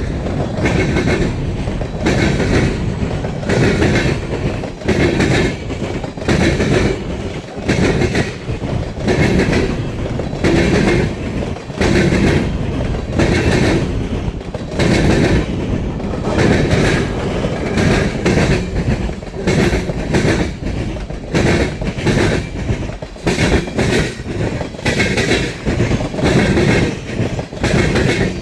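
Norfolk Southern freight cars rolling past at speed, their wheels clattering over the rail joints in a regular clickety-clack of about one burst every second or so, over a continuous rumble.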